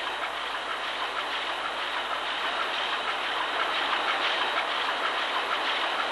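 Large marine diesel engine running in its engine room: a steady, dense mechanical din flecked with fine clattering.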